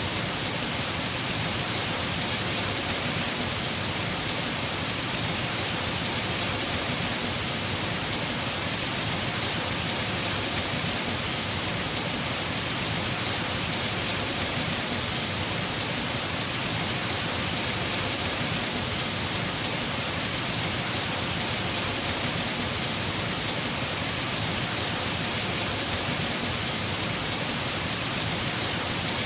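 Heavy rain falling steadily on a house roof, an even, unbroken hiss of drops with no pauses or thunder claps.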